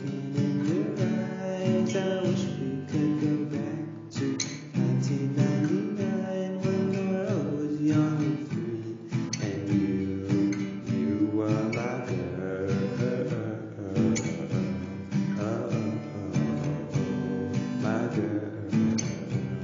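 Music with a strummed acoustic guitar playing steadily.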